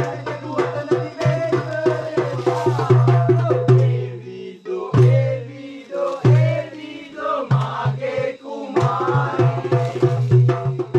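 Background music with hand-drum percussion keeping a steady beat.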